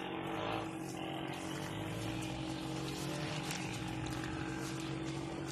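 A motor or engine running with a steady, unchanging hum.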